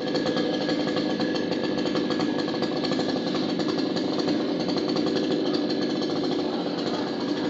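Two-stroke chainsaw engine running steadily at high speed with a fast rattle, cutting a tree.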